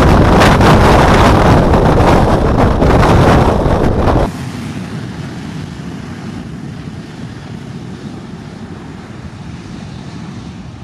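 Jet blast from a Boeing 737-800's CFM56 turbofans at high thrust, aimed straight at the microphone: a loud, buffeting rush of engine noise and wind. About four seconds in it cuts off abruptly to a much quieter steady rush of jet noise and wind that slowly fades.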